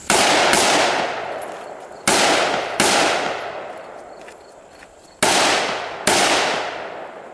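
Six AR-15 rifle shots fired in three pairs: two about half a second apart, two more about two seconds later, and a last two about two and a half seconds after that. Each shot is followed by a long echo that fades over a second or more.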